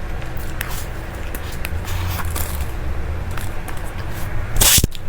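Close-miked eating sounds: scattered small wet clicks and ticks of chewing over a steady low hum, with one short, loud hiss-like burst near the end.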